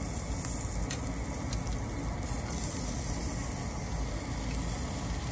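Food sizzling on a tabletop barbecue grill, a steady hiss with a few faint clicks.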